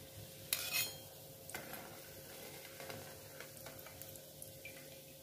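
Metal slotted spoon clinking against a wire strainer and the frying pan while fried donuts are lifted out of the oil: a sharp clatter about half a second in, a softer knock a second later, then a few light ticks, over faint sizzling oil.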